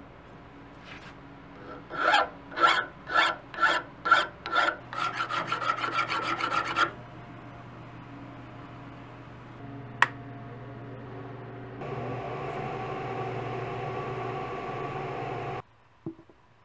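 Hand filing on the steel parts of an old hand-crank valve lapping tool: six slow, separate strokes, then a run of quick short strokes for about two seconds. A single sharp click follows, then a steady rasping noise for about four seconds that cuts off suddenly.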